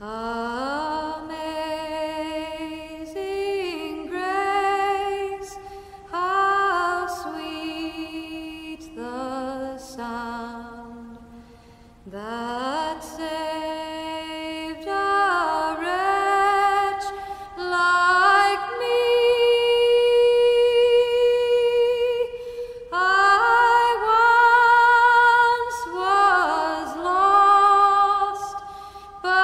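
Background music: a solo singing voice carrying a slow melody that slides between notes, with a brief pause about halfway and one long held note after it.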